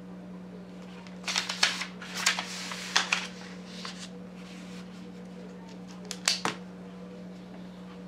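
Paper and small objects handled on a desk: a few bursts of rustling and scraping, a cluster in the first half and another brief one past the middle, over a steady low hum.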